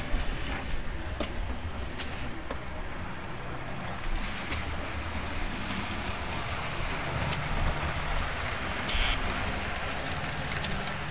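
HO-scale model trains running on the layout: a steady rumble of motors and wheels on track, with a few sharp clicks scattered through it.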